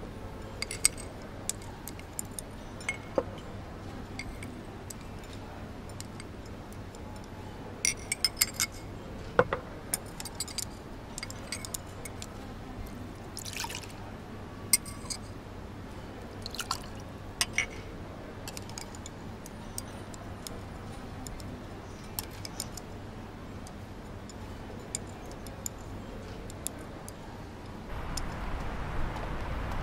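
Chopsticks and spoons clicking and clinking against porcelain bowls and plates while eating, in scattered light taps with a brief ringing, over a steady low hum. Near the end the background changes to louder street traffic.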